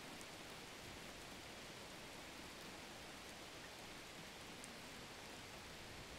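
Steady, even sizzling of hot oil deep-frying potato fries.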